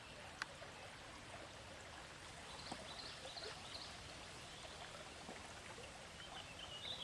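Faint steady rush of flowing river water, with a few faint high chirps about three seconds in.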